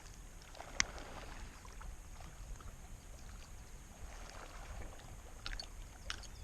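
Small clicks and knocks of handling inside a fishing kayak against faint water and wind noise, the sharpest click about a second in and a couple more near the end.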